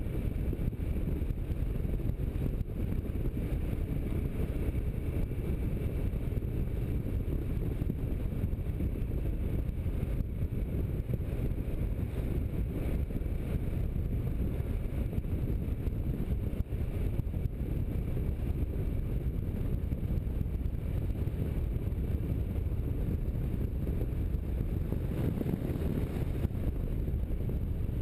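Kawasaki Versys motorcycle cruising at a steady speed: a constant low rumble of wind rushing over the camera microphone, with the engine running evenly underneath.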